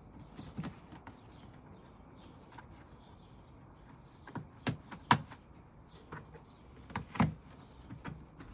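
Plastic push-in lugs on a front-trunk liner being pressed into their holes, with a few sharp plastic clicks and knocks; the loudest about five seconds in, and two more close together about seven seconds in.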